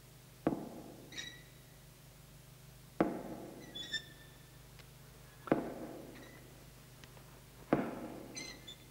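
Heavy thuds through the wall from the next flat, four of them about two and a half seconds apart, each followed by a brief high squeak. It is the strange sound that keeps the man in bed awake.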